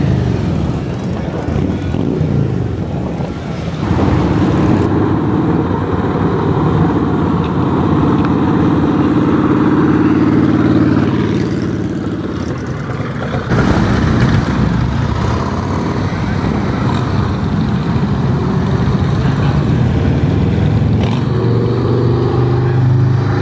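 Motorcycle engines, mostly Harley-Davidson V-twins, running and revving as bikes ride slowly past one after another. The sound changes abruptly about four and thirteen seconds in.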